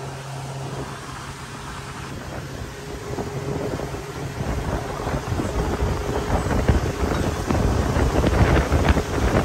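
Motorboat underway, its engine hum under wind rumbling on the microphone, growing louder from about halfway through.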